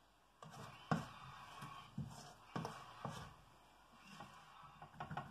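A spoon scraping and knocking against a stainless steel mixing bowl as dough is scooped out, with a series of sharp knocks roughly a second apart and a quick cluster of them near the end.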